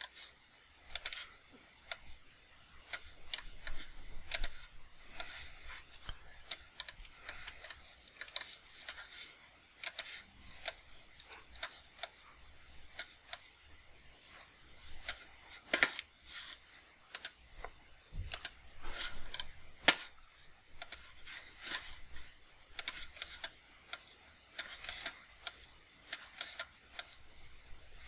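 Computer keyboard keys and mouse buttons clicking in short, irregular clusters, as shortcut keys and clicks are used while modelling in Blender.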